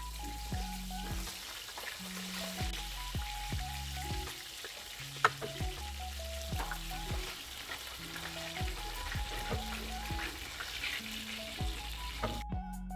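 Lamb shanks frying in hot oil in a stainless steel pan, sizzling steadily as they brown. Metal tongs click against the pan now and then as the pieces are turned and lifted, with one sharp clack about five seconds in.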